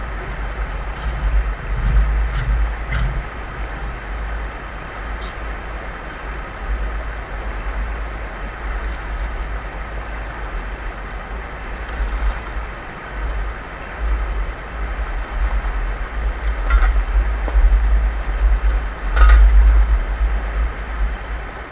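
Mountain stream rushing over rocks: a steady wash of water noise with a deep rumble that swells and fades, loudest near the end.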